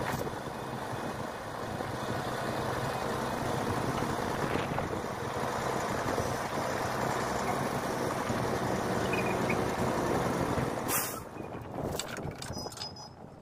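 Heavy tow truck's diesel engine running steadily, with a short sharp hiss of air brakes about eleven seconds in, after which the engine sound drops away.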